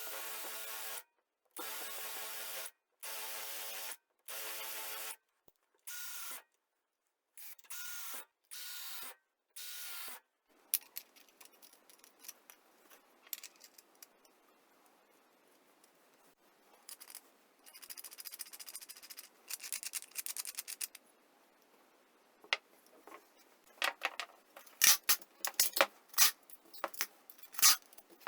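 A small motor running in short, steady bursts, separated by abrupt cuts. This is followed by scattered clicks, scrapes and rattles of hard parts being handled, which grow louder near the end.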